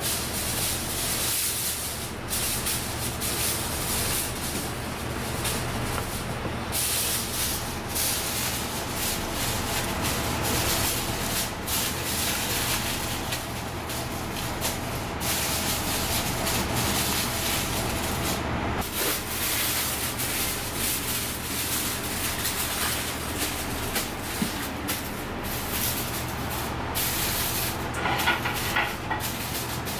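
Steady hissing noise over a low hum, kitchen background, briefly dipping now and then, with a few light knocks near the end.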